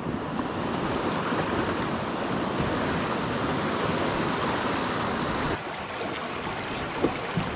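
River water rushing over riffles, a steady hiss that drops a little in level and brightness about five and a half seconds in. A brief knock sounds near the end.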